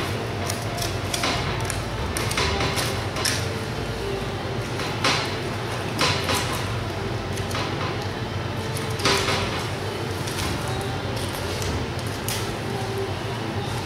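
Boning knife and steel-mesh butcher's glove working a raw joint of pork on a cutting board: irregular clicks and knocks of the blade against bone and board, a few sharper ones about five, six and nine seconds in, over a steady background noise.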